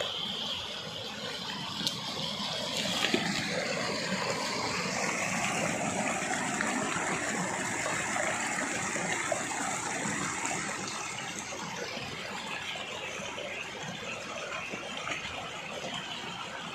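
Steady rush of flowing water, a little louder in the middle stretch and easing off toward the end.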